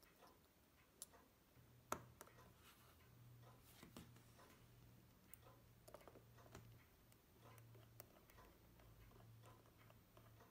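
Near silence, with faint small clicks of steel tweezers and a screwdriver touching a pocket watch movement. One sharper click comes about two seconds in, and a faint low hum sits underneath.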